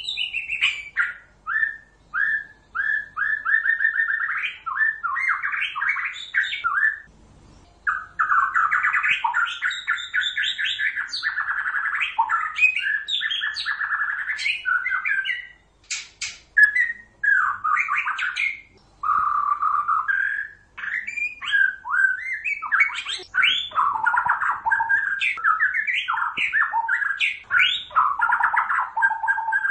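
White-rumped shama song: long, varied phrases of rapid repeated whistles and harsher chattering notes, broken by short pauses about seven seconds in and again halfway through. It is a recording played as a lure to trap the bird.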